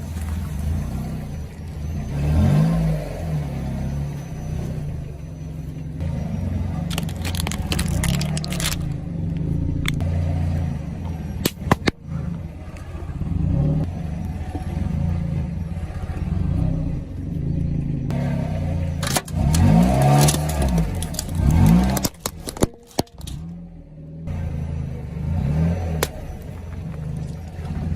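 Car engine running, revving up a few times, with a few sharp cracks and some clatter.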